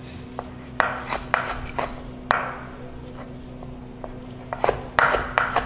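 Chef's knife dicing strips of green bell pepper on a wooden cutting board: a few sharp knocks of the blade on the board between about one and two and a half seconds in, a pause, then a quicker run of chops near the end, over a faint steady hum.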